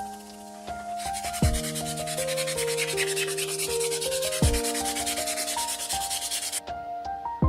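Sanding: a fast, even rasping that starts about a second in and cuts off suddenly near the end, over background music with slow melodic notes.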